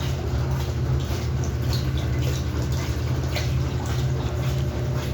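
Samsung washing machine spinning a full load at medium speed, about 600 RPM by the seller's estimate: a steady low hum with water swishing in the drum and small ticks, running smoothly without vibration.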